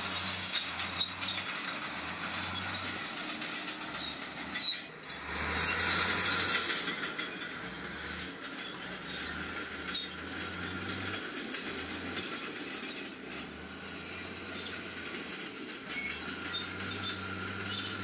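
Small crawler bulldozer at work: its diesel engine runs with a pulsing low hum while the steel tracks clank and squeal. About five seconds in, a louder rushing, grinding noise lasts a couple of seconds.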